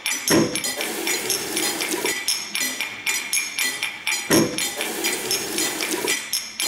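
Rhythmic percussion of struck objects: quick sharp taps and bright clinks in a steady beat, with a heavier, lower hit opening a pattern that repeats about every four seconds.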